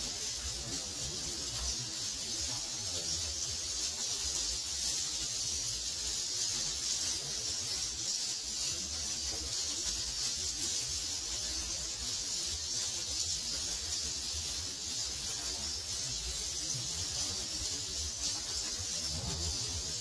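Dense, steady high-pitched twittering of many swiftlet calls, with an uneven low rumble underneath.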